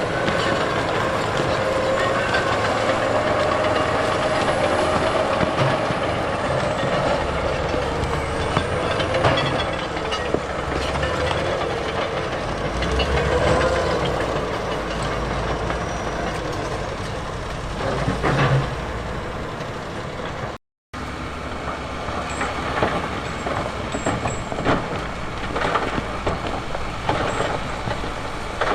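Heavy diesel earthmoving machinery at work: the engine runs under load, its pitch rising and falling, with metal clanks and knocks over it. The sound breaks off for a moment about two-thirds of the way through, then similar machine noise returns with more frequent sharp knocks.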